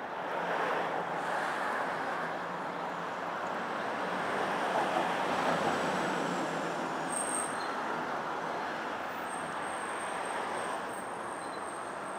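Steady city street traffic noise, swelling twice as vehicles pass.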